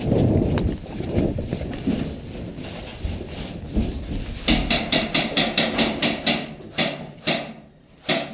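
Running footsteps and gear rustle. About four seconds in, an airsoft gun fires a quick string of shots, about four or five a second, which thins to a few single shots near the end.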